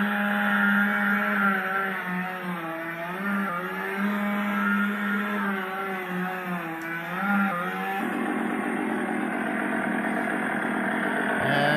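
Recorded chainsaw sound effect played through the small built-in speaker of an electronic Ash's chainsaw prop replica: a pitched engine note that revs up and down for about eight seconds, then settles into a steady running loop that keeps going while the prop is switched on.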